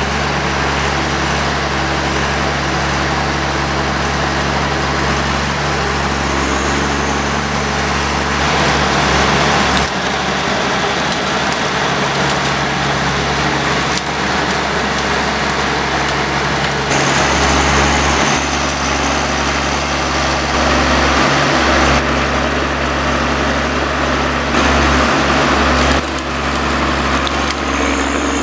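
John Deere 1110D forwarder's diesel engine running steadily with a constant low hum, the overall sound changing abruptly a few times.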